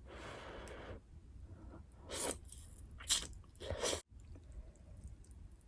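Close-miked eating: a soft rushing sound in the first second, then three loud, sharp crunchy bites and chews a couple of seconds in, followed by quieter faint chewing.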